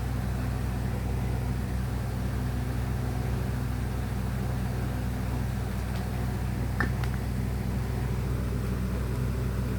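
A steady low mechanical hum. Near seven seconds in, a brief faint high chirp and a couple of faint clicks cut through it.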